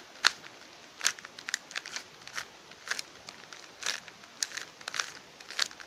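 Plastic Rubik's-type puzzle cube being turned quickly by hand: irregular sharp clicks and clacks as its layers snap round, a few each second.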